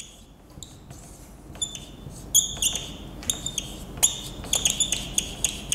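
Marker pen squeaking on a whiteboard as handwriting is written: a run of short, high-pitched squeaks, coming thicker in the second half.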